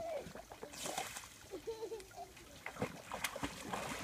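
Dog swimming through icy creek water after a stick: faint, irregular splashing and small crackles of water and thin ice.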